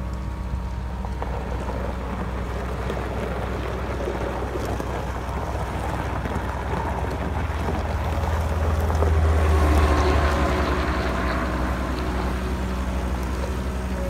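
2013 Volvo MC95C skid steer's diesel engine running steadily as the machine drives and turns. It grows louder toward its peak about ten seconds in, then eases back.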